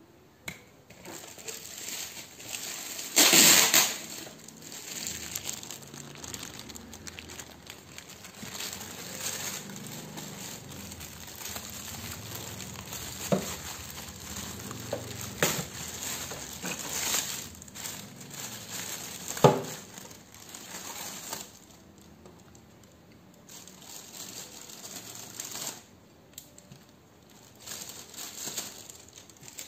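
Clear plastic bag crinkling and rustling as ink bottles are pulled out of it, with a loud rustle about three seconds in. A few sharp knocks as the bottles are set down on a wooden table.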